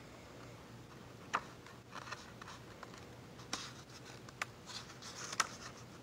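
A few faint, scattered clicks and short rustles of paper as a picture book's pages are handled and turned, over quiet room tone.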